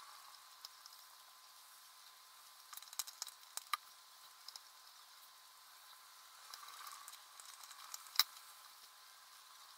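Faint small clicks and ticks of a precision screwdriver turning tiny screws into the iPhone 5S's metal shield plate over a light hiss. There is a cluster of clicks about three seconds in and one sharper tap about eight seconds in.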